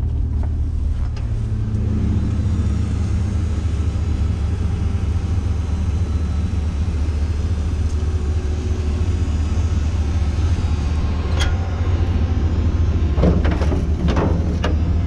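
Engine of a Nitehawk sweeper truck on an Isuzu cabover chassis running steadily with a low rumble. A sharp knock comes about eleven seconds in, and a cluster of knocks and rattles near the end.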